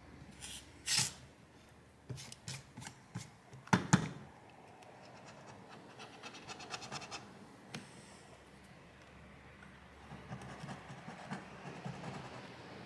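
Small flathead screwdriver scraping and picking leftover glass shards out of the adhesive around a phone's rear camera recess. A few sharp scrapes and clicks come in the first four seconds, the loudest near four seconds, followed by softer scratching.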